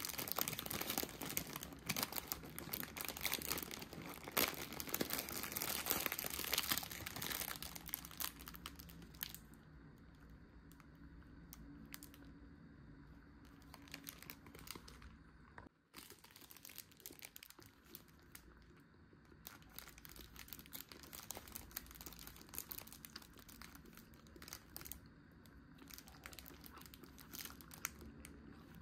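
Plastic food packaging crinkling and tearing, dense and loud for about the first nine seconds, then quieter, scattered rustling and clicks.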